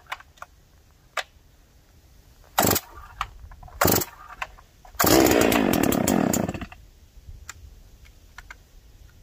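Farmertec Holzfforma G660 two-stroke chainsaw being pull-started from a very cold soak at 6°F: several quick rasps of the recoil starter cord. About five seconds in, the engine fires and runs briefly for about a second and a half, then dies away.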